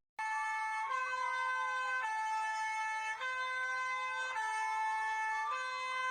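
Electronic siren sound effect that starts abruptly: a hi-lo two-tone pattern switching about once a second, with a slow wailing tone gliding down and back up beneath it.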